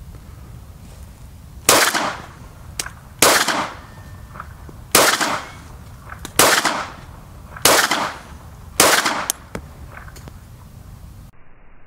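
Six pistol shots from a Mitchell Arms American Eagle P-08 Luger in 9mm, spaced about one to two seconds apart. Each shot is a sharp crack with a brief echo behind it, and fainter clicks fall between some of the shots.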